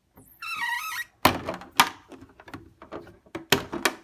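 Body clips and plastic body shell of an RC short course truck being handled and removed: a short wavering squeak under a second in, then a series of sharp clicks and knocks, four of them loudest.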